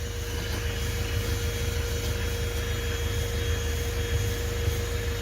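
THISWORX 12 V handheld car vacuum with a 106 W motor running steadily with a constant whine, powered from the car with the engine running. A low rumble lies underneath.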